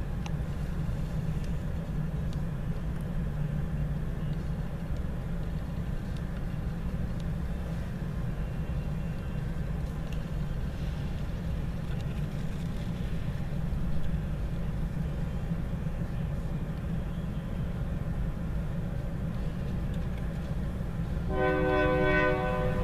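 Low, steady rumble of a CRANDIC freight train's diesel locomotive at a grade crossing, heard from inside a car. Near the end a train horn starts sounding.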